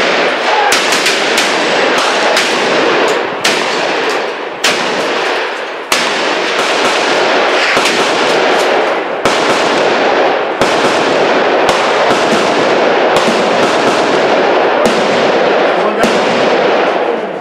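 Shotguns fired by several shooters at once: a long run of loud, irregular blasts, about two a second and sometimes overlapping. Each shot smears into the next with echo under the firing line's wooden roof.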